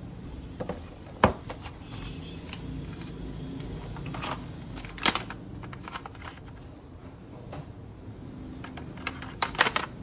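Handling noise from unboxing a phone: scattered sharp clicks and taps of the phone and the cardboard accessory box with its charger and cable being picked up and handled, the loudest about a second in and a quick cluster near the end. A low steady hum sits underneath.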